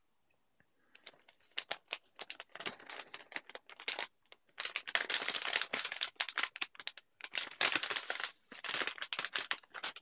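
Metallised anti-static shielding bag crinkling and crackling as a motherboard in its foam tray is pulled out of it. It starts about a second in and goes in irregular bursts, loudest in the second half.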